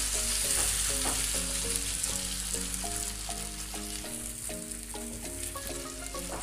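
Grated potato pancake mixture sizzling steadily in hot oil in a frying pan as it is pressed into shape by hand. A soft melody of held notes plays behind it.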